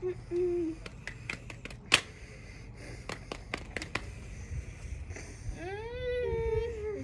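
A quick run of sharp hand claps and slaps, the loudest about two seconds in. Near the end a voice rises into a high, held squeal.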